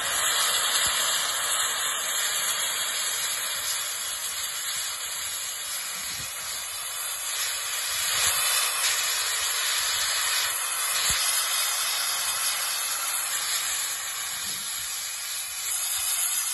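Steam hissing steadily from the open cylinder drain cocks of GWR Castle class 4-6-0 locomotive 5043 Earl of Mount Edgcumbe.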